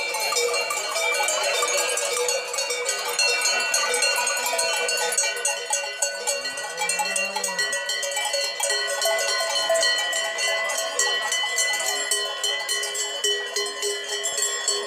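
Many cowbells clanging and ringing together on a herd of cows walking along a paved road, a dense, continuous jangle of overlapping bell tones.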